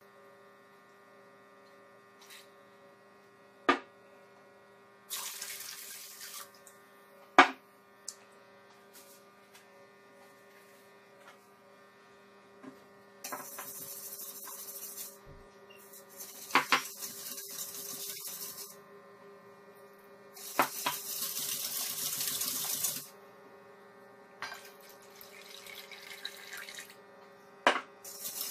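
Liquid being poured and stirred with a wooden spoon in a stainless-steel mixing bowl. There are several splashy stretches a few seconds long and five sharp clinks of containers and utensils, over a steady hum.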